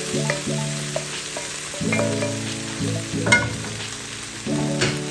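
Beef and green beans sizzling in a stainless steel pan as they are tossed and stirred, with a few sharp clicks, over background music of held notes.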